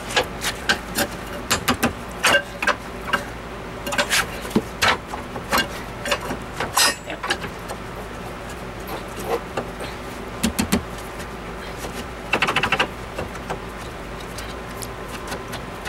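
Irregular metal clanks, taps and scrapes of a pry bar against a 1969 Chevelle's rear coil spring and axle as the new spring is levered into its seat, over a faint steady hum.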